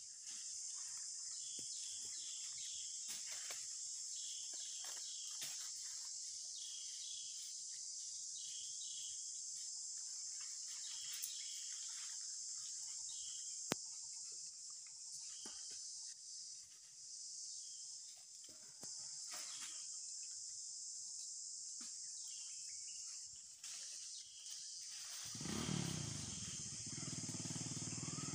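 Steady high-pitched drone of forest insects, with one sharp click about halfway through. Near the end a louder, lower rumbling sound joins in.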